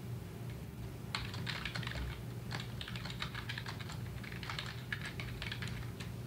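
Computer keyboard typing: a quick run of keystrokes that starts about a second in, over a low steady hum.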